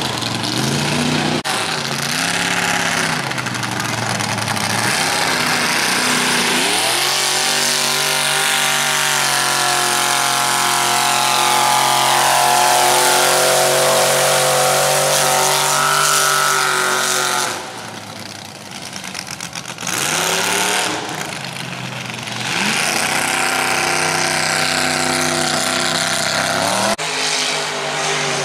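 An engine revving up and down, then holding a steady high pitch for several seconds before dropping off and picking up again.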